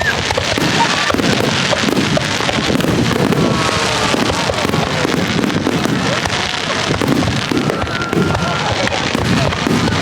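Fireworks bursting close overhead in a dense, continuous barrage of crackling and bangs, with no pause.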